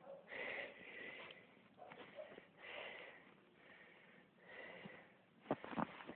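Beagle puppy sniffing in faint short bursts, roughly once a second, with two sharp taps near the end.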